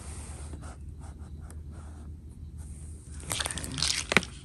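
Crinkling and scraping of product packaging being handled, loudest about three seconds in and ending with a sharp click.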